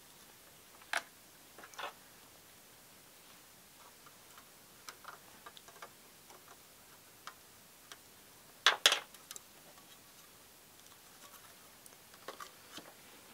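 Scattered small clicks and taps from hand work at a soldering bench while a resistor is soldered onto a circuit board and its tools are handled. A louder cluster of sharp clicks comes just before nine seconds in.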